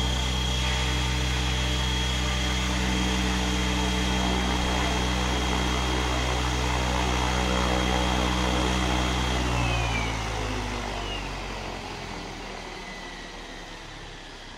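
Align T-Rex 700E DFC electric RC helicopter's rotor spinning steadily on the ground with a high motor whine. About ten seconds in the power is cut: the whine falls in pitch and the rotor winds down, growing steadily quieter.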